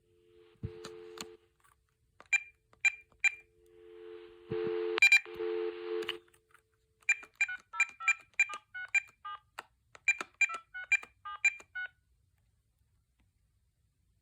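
VTech T2326 cordless handset: a few key beeps and a steady dial tone that stops and comes back with line hiss, then a quick run of about ten touch-tone dialing beeps as a number is keyed in.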